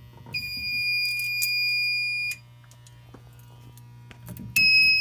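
System Sensor SpectrAlert Advance fire alarm horns sounding a steady, loud, high-pitched continuous tone for about two seconds, cutting off, then starting again near the end.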